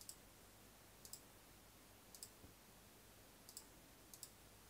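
Faint computer mouse clicks: about five short press-and-release clicks, roughly one a second, over a low steady hiss.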